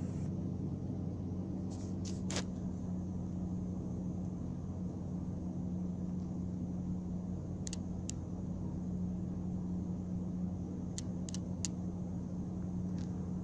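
A steady low hum, with a few faint short ticks scattered through it and a sharper click about two seconds in.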